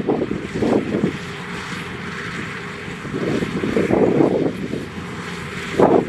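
Kubota DC105X combine harvester running as it cuts rice, its diesel engine and threshing machinery giving a steady drone that swells and fades unevenly.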